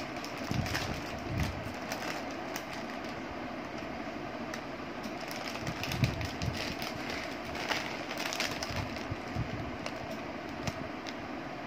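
Plastic chip bag crinkling and dry corn chips crunching in short bursts as two monkeys reach in and eat, over a steady rushing of heavy rain.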